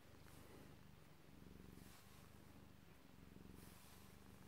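Himalayan cat purring faintly, the low purr swelling and easing in stretches of about a second, while a bristle brush strokes through the long fur on its head.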